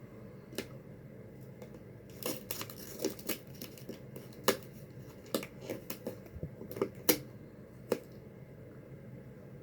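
Plastic packaging crinkling and clicking as it is handled and opened, in a dozen or so short, sharp crackles spread over several seconds.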